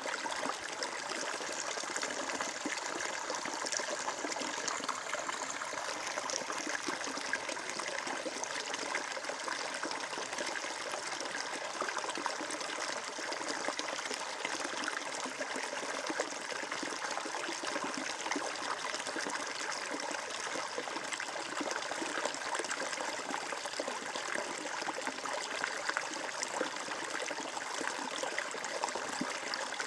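Water flowing and trickling steadily, a stream or brook running over stones.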